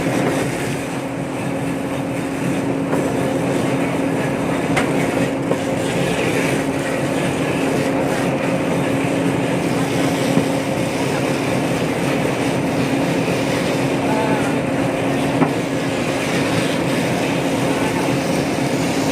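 Tyre strip-cutting machine running: its 5000-watt electric motor and WPA 120 worm gearbox give a steady hum over a continuous mechanical noise, with a couple of small ticks.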